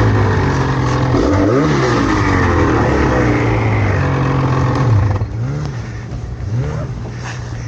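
Snowmobile engine running under varying throttle, its pitch rising and falling again and again as the rider works the throttle. About five seconds in it drops back to a quieter, lower run.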